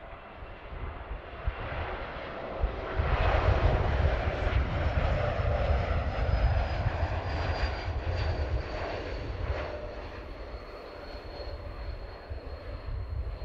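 Embraer E195-E2's Pratt & Whitney PW1900G geared turbofans on landing approach. The jet noise swells about three seconds in and then slowly eases off, and in the second half a thin high whine slides gradually down in pitch as the aircraft passes.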